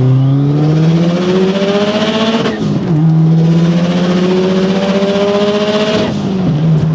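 Turbocharged Subaru WRX flat-four accelerating hard in a full-throttle pull through the gears. The engine note climbs steadily, then drops at an upshift about two and a half seconds in, climbs again, and drops at a second upshift near the end.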